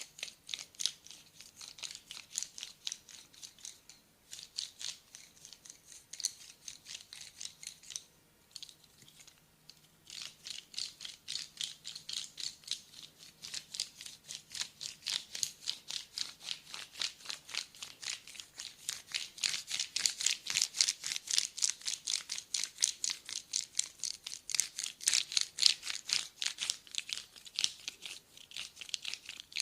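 Brisk massage strokes scratching and rubbing over bare skin, about three or four a second in a steady rhythm. They pause briefly around eight seconds in, then return and grow louder in the second half.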